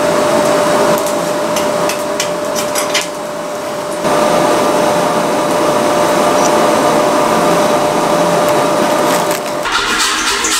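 A steady mechanical whirr with a constant hum runs under clicks and scrapes from the wrought iron cleft weld pieces being handled on cardboard and wood, about one to four seconds in. Music starts near the end.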